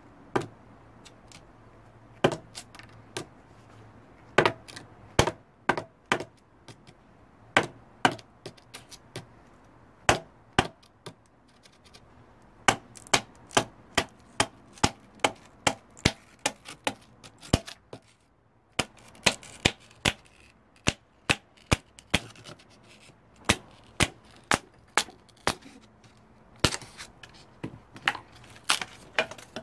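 Repeated sharp knocks of a hammer driving a knife blade down through a dry palm frond stem to split it lengthwise (batoning), the strokes uneven and often one to two a second, with a short pause a little past the middle.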